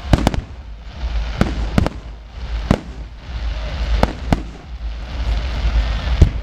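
Aerial fireworks shells bursting overhead: about eight sharp bangs at irregular spacing over a continuous rush of noise, the loudest bang near the end.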